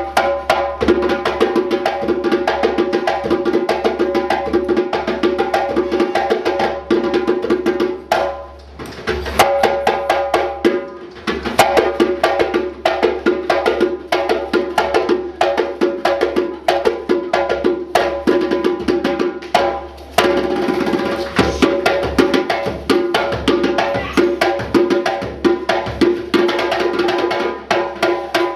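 African percussion music: fast, dense strokes on pitched wooden or drum instruments in a driving rhythm, with short lulls about eight and twenty seconds in.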